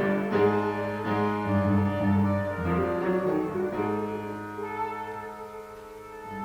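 Chamber music from a quintet: several instruments holding sustained notes together. The low part drops out about five seconds in, and the music grows quieter toward the end.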